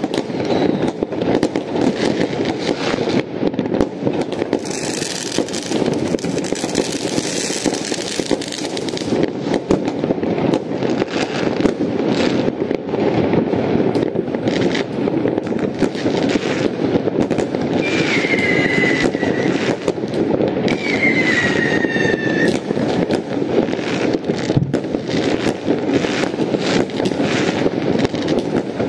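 Many fireworks going off at once in a continuous barrage of bangs and crackling. There is a spell of hissing about five seconds in, and two falling whistles past the midpoint.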